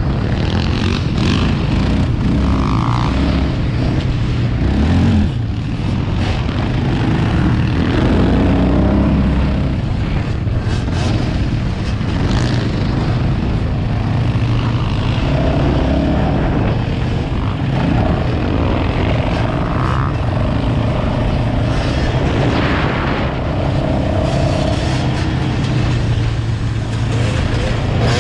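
ATV engine running under load at speed across soft sand, with wind rushing over the mounted camera's microphone. The engine note rises and falls with the throttle.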